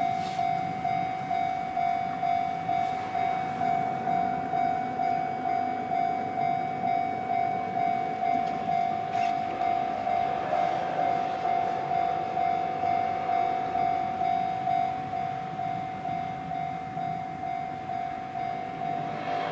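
Japanese railway level-crossing warning bell ringing, an even pulsing tone at about two strikes a second.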